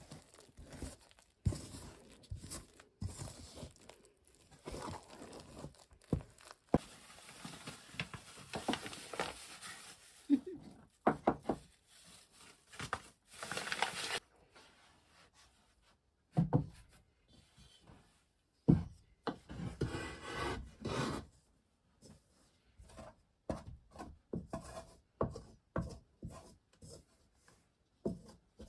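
Irregular knocks and scrapes of a wooden spoon stirring wet dough in an enamel bowl, with stretches of a plastic flour bag crinkling and rustling.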